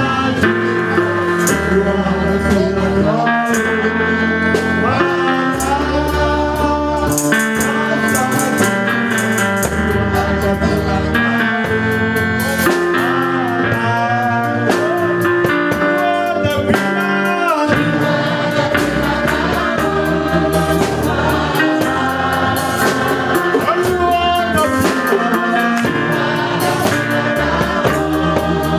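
Live gospel praise music from a church band, with a drum beat, instruments and singing voices.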